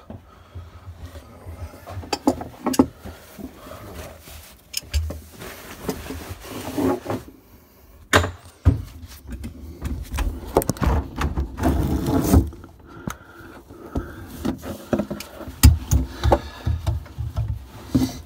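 Handling noise: irregular clicks, knocks and rubbing as the phone is moved about and channel-lock pliers are set on an old corroded shut-off valve under a sink.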